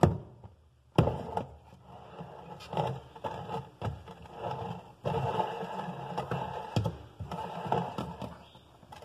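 Plastic agitator of a Colormaq washtub struck clockwise by hand, two sharp knocks near the start, then scraping and rattling as the loosened agitator is turned on its shaft. The blows free the agitator so it can be lifted off.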